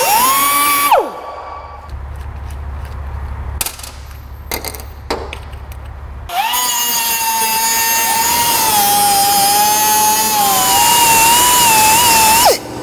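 Pneumatic cut-off tool with an abrasive disc cutting stainless-steel tubing. It whines at high pitch, then spins down about a second in. A few clicks follow while a worn-out cut-off disc is swapped. The tool starts again about halfway through and cuts with the pitch wavering and dipping under load, then spins down just before the end.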